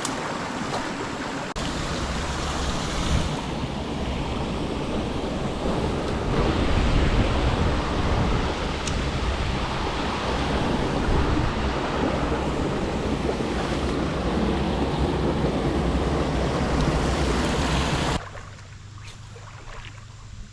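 Stream water rushing close by, mixed with wind buffeting the microphone in a low rumble. The noise is loud and steady, then cuts off abruptly near the end.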